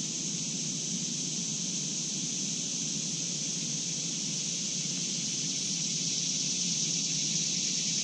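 Steady outdoor background noise: an even high hiss over a faint low rumble, with no distinct calls or knocks.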